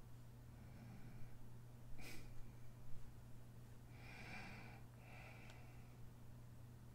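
Two short breaths close to the microphone, about four and five seconds in, over a steady low electrical hum, with a sharp click about two seconds in.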